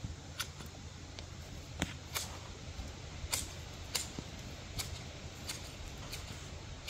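Large hand-held garden shears snipping a bush: about eight sharp clicks as the blades close, irregularly spaced, over a steady low background rumble.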